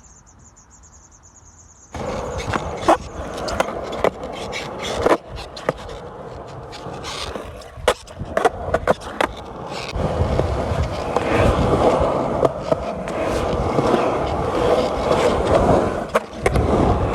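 A faint high insect trill, cut off about two seconds in by a loud rolling rumble of hard wheels on pavement, with frequent sharp clacks and knocks that grows fuller and heavier from about ten seconds in.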